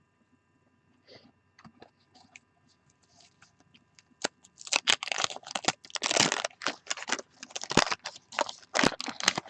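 Wax-paper wrapper of a trading-card pack being torn open and crinkled. A few faint ticks come first, then from about four seconds in a loud run of irregular crackling and tearing.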